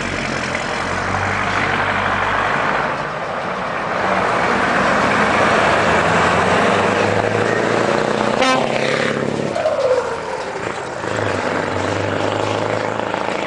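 Scania 144 530's V8 turbo-diesel pulling hard under load with a loud turbo sound. About two-thirds of the way in, a whine falls in pitch and the engine briefly drops as the throttle lifts for a gear change, then it pulls on again.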